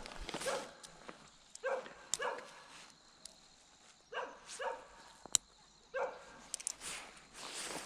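A dog barking in short barks, mostly in pairs, with a sharp click about five seconds in.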